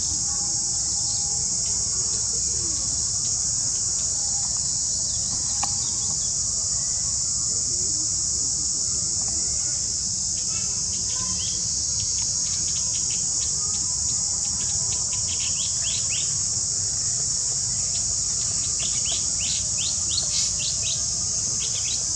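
Steady, high-pitched drone of an insect chorus, with runs of quick, short chirps in the second half, most of them near the end.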